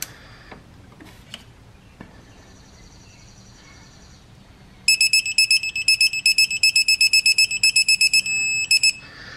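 Digital torque wrench beeping rapidly, about six high beeps a second, starting about halfway in as the thermostat housing bolts are brought up toward the set 9 ft-lb. The beeps turn into a short steady tone near the end, the wrench's signal that the target torque is reached.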